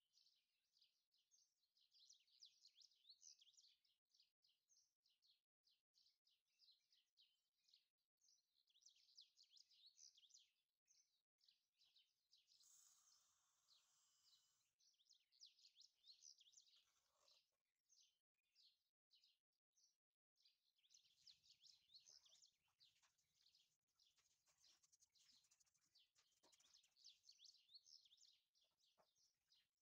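Near silence with faint bird chirping in the background. About halfway through there is a brief, soft hiss of granulated sugar being poured into a stainless steel pot.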